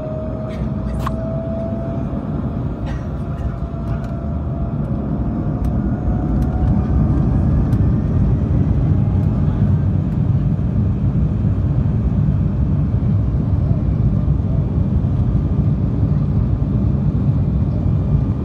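Jet airliner's engines spooling up for the takeoff roll, heard inside the cabin: a deep, steady rumble with a thin whine slowly rising in pitch. The noise grows louder about six seconds in as thrust builds and the aircraft starts down the runway.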